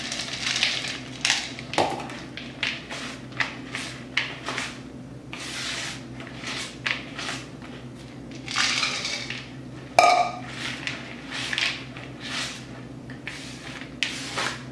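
Semi-sweet chocolate morsels poured into a mixing bowl of cookie dough, then a spatula folding them through the thick dough and scraping against the bowl in repeated strokes, with one sharp knock about ten seconds in.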